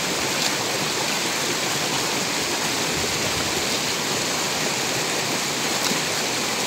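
Steady rush of running water in a stream pool, with a small splash near the start.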